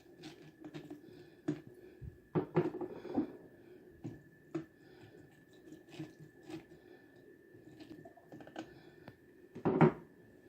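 Chewing with irregular crunches and clicks, a loud cluster about two and a half seconds in and another near the end, over a faint steady high tone.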